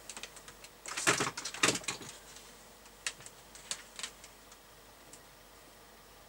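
Handling noise as an external speaker lead is plugged into the back of a CB radio: a cluster of knocks and rustling about a second in, then a few light, separate clicks.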